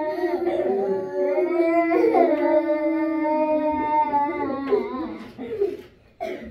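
A high voice wailing in long drawn-out notes. The pitch steps about two seconds in, and the voice breaks up and trails off near the end.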